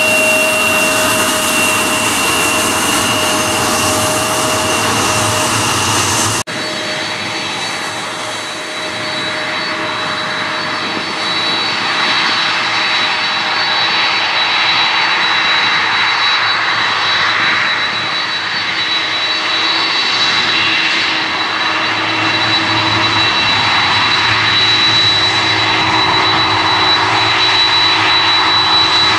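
Jet engines of taxiing airliners running at low power. First an Embraer regional jet's turbofans whine steadily. After an abrupt cut about six seconds in, a Boeing 747 freighter's four turbofans run with a steady high whine over their roar, getting a little louder near the end as the jet approaches.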